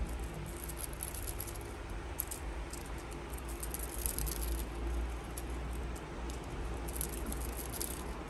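Beads in a cat wand toy's clear stick and feather end rattling in short irregular bursts as the wand is shaken for a kitten, loudest around the middle and again near the end, over a low steady rumble.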